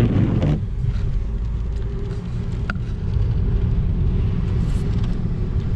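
Steady low rumble of a car driving, heard from inside the cabin, with a faint steady hum running through it.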